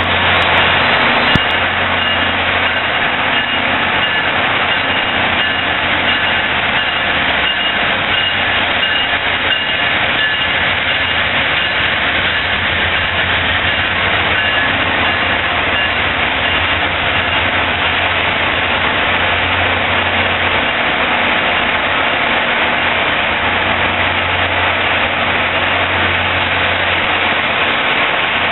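Amtrak GE P42DC diesel locomotives running steadily as the train pulls past, a continuous diesel drone with a thin high whine that fades out about halfway through. The sound carries on as the passenger cars roll by.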